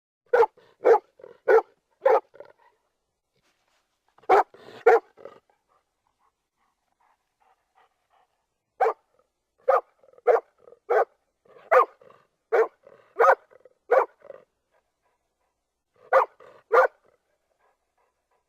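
Golden retriever barking in short groups: four barks, a pair, a run of about eight, then a final pair, with dead silence between the groups.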